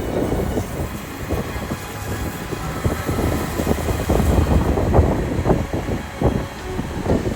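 Sailboat's engine running steadily as it motors in, a low rumble broken by irregular knocks and thumps.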